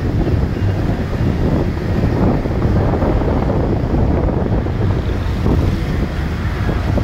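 Wind buffeting the microphone of a phone held at the window of a moving car, over the car's road noise; a loud, steady rushing rumble.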